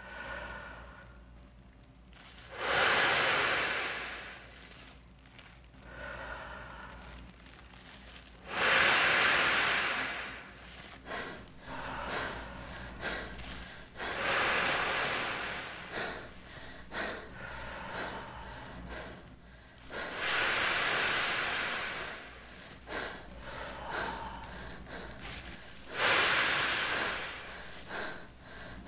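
A man exhaling hard into the mouth of a large clear plastic bag to inflate it: five long blowing breaths about six seconds apart, each lasting about two seconds, with small crinkles of the plastic between breaths.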